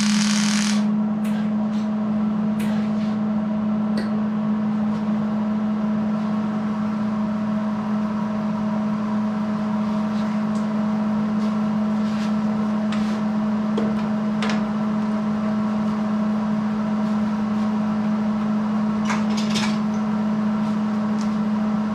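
A welding arc hissing and crackling as a tack weld on steel tubing ends a little under a second in. Then a steady electrical hum with a fainter higher whine, broken by scattered light clicks and taps.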